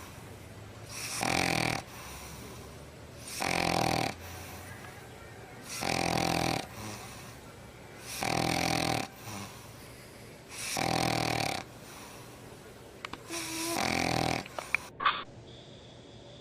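Maltipoo puppy snoring in her sleep: a rough snore on each breath about every two and a half seconds, six in all. Near the end, a few sharp clicks and a short squeak.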